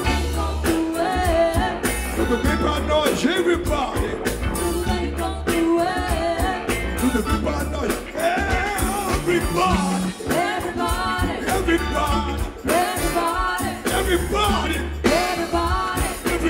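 Live Brazilian soul-funk band playing, with a steady heavy bass line, drums and electric guitar, and a singer's voice over the groove.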